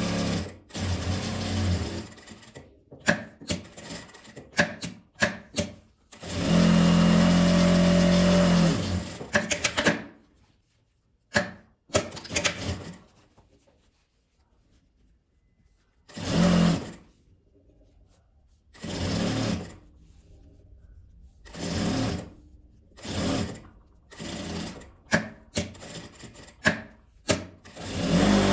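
Industrial straight-stitch sewing machine stitching folded fabric straps, running in short bursts and one longer steady run of a few seconds near the middle. Between runs come sharp clicks and stretches of near quiet while the fabric is repositioned.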